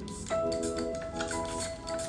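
Background music: held keyboard-like chords over a light, steady beat.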